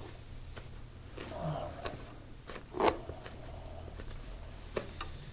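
Soft rustling and scattered small clicks of hands kneading and gripping the back of a man's neck and scalp. There is one sharper click about three seconds in and a brief low murmur from the man about a second in.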